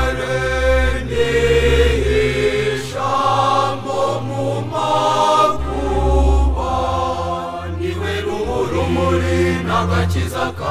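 A school choir singing a Kinyarwanda church hymn in harmony, sustained chords changing every second or two over low held bass notes.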